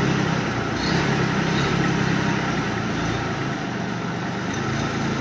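Tractor engine running steadily at a constant speed, a low hum under an even hiss, with an air-blast orchard sprayer hitched behind it.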